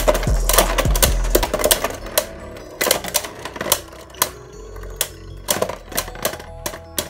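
Venom Diabolos and Zwei Longinus Beyblade Burst tops spinning in a plastic stadium, clacking sharply against each other and the stadium wall in a quick, irregular string of hits, several a second.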